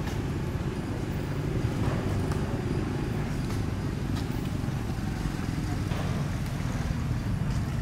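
Steady low rumble of an engine running, unchanging throughout, with a few faint ticks.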